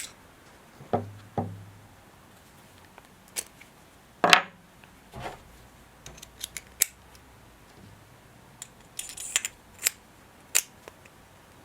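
Metal parts of a holesaw set being handled: about a dozen separate sharp clicks and knocks. Two come with a low thud about a second in, the loudest comes about four seconds in, and a quick cluster follows near the end.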